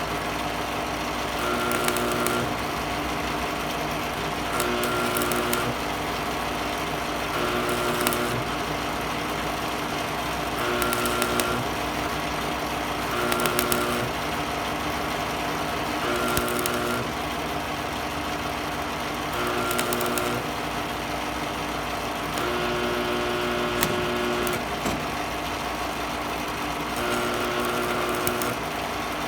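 Miller Thunderbolt 250 AC stick welder humming, with short arc bursts of about a second every two and a half to three seconds, as in stitch welding thin metal. Each burst crackles and raises the transformer's buzz. Near the end, one burst runs about two seconds.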